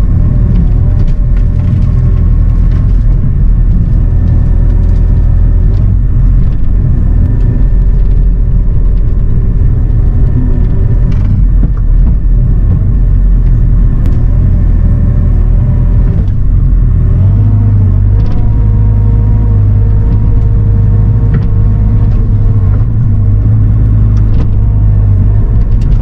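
Bobcat E42 mini excavator's diesel engine running steadily under hydraulic load, heard from inside the cab, as the arm and bucket work through brush. A few sharp knocks stand out, and about two-thirds of the way through the low engine drone shifts and grows stronger.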